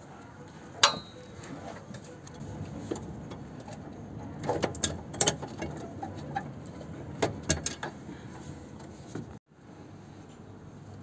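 Sharp metallic clicks and knocks from hands working on a car's rear brake caliper and its cable fitting: one loud clink with a short ring about a second in, then clusters of clicks midway and again a little later, over a low steady background.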